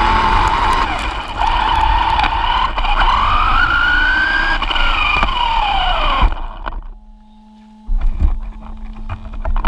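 RC car's motor and gears whining as it runs over a dirt track, the pitch climbing and falling with speed over a rumble from the bumps. The whine cuts off about six seconds in, and near the end there are knocks and handling sounds.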